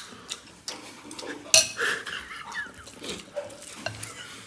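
Metal serving spoons clinking against serving bowls and plates on a dinner table, a series of light clicks with one loud clink about a second and a half in.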